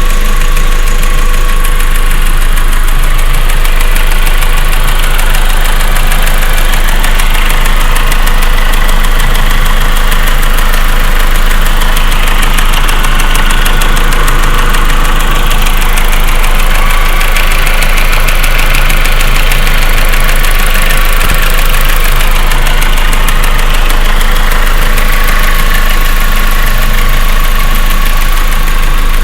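1.8T turbocharged four-cylinder engine idling with a rapid, steady ticking over the engine note. This is a cold-engine tick, which the owner says quietens and goes away once the engine is warm.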